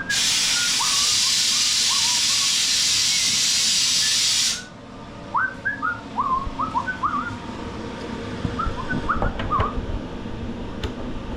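A loud, steady hiss like escaping air runs for about four and a half seconds and cuts off suddenly. It is followed by a scattering of short, quickly rising whistled chirps.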